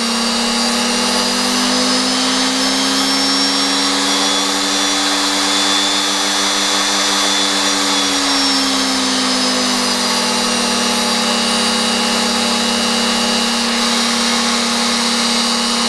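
Virutex FR156N trimmer's motor running on its repaired triac speed-control board, a steady whine. Its pitch rises to a peak about six seconds in, then falls back as the speed is turned up and down again, showing that the speed control is working as it should.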